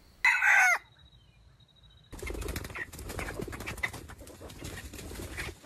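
Red junglefowl rooster giving one short, loud crow about a quarter-second in, its pitch falling at the end. From about two seconds in, a steady rustling noise with a few faint clucks over it.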